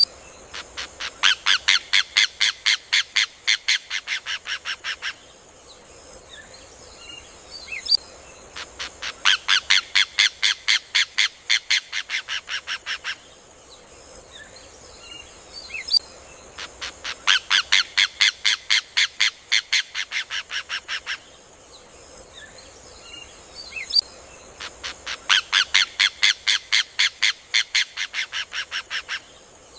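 Rufous hornero (João de Barro) singing its loud, rapid song: four bouts of fast repeated notes, about five a second, each lasting about four seconds and fading a little toward its end, with the bouts coming about every eight seconds.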